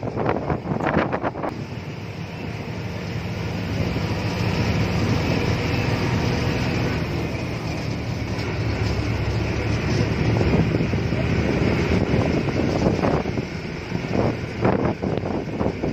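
Steady rumble of a moving vehicle's engine and road noise, with wind buffeting the microphone in choppy gusts for the first second or so and again near the end.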